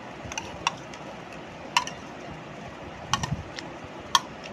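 A metal spoon clinking against a plastic bowl while scooping food to the mouth: five or six short, sharp clinks at irregular intervals, the loudest near the end.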